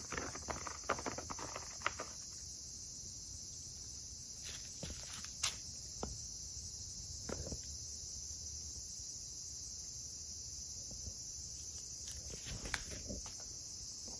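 A cat's claws scratching at a woven rattan mat, a dense scratchy crackle for about the first two seconds, then a few scattered light taps, over a steady high-pitched hiss.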